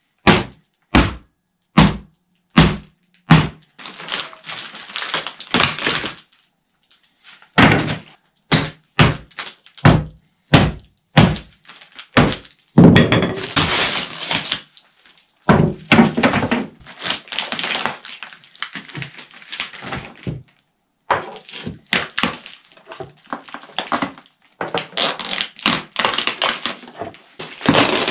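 A hammer knocks apart the casting form around a cured epoxy slab, striking sharply about every three-quarters of a second. A second run of blows follows after a short pause. Cracking, crunching and scraping run through the second half as the form's side strips are pried and pulled off the hardened epoxy.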